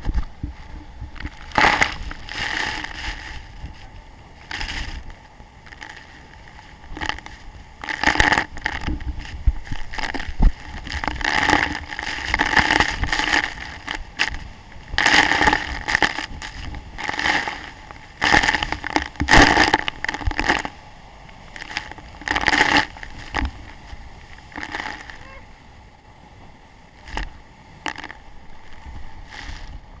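Heavy waterfall spray pounding up close and striking the camera, in loud irregular gusts over a steady low rumble of falling water.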